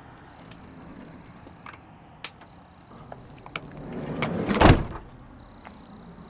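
Sliding side door of a Ram ProMaster cargo van pulled shut: a rolling sound along its track builds for under a second and ends in a loud slam just past the middle. A few light clicks and knocks come before it.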